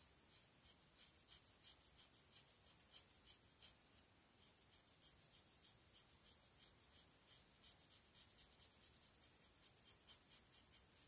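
Faint, quick scratching strokes of a felt-tip marker on paper, about three a second, as solid black is filled into a drawing.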